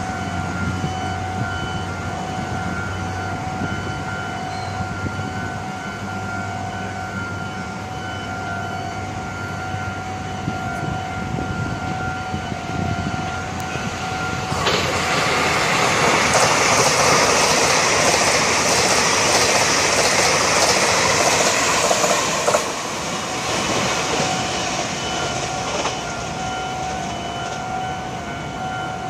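Level-crossing warning signal ringing steadily with the barriers down. About halfway through, a TRA electric express train passes over the crossing in a loud rush of wheels on rail that lasts about eight seconds and cuts off abruptly.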